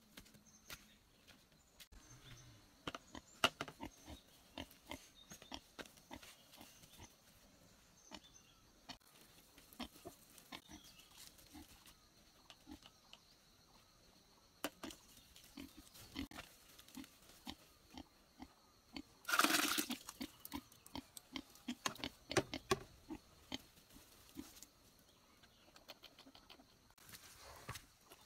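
A pig grunting at feeding time, among scattered footsteps and knocks, with one short loud outburst about two-thirds of the way through.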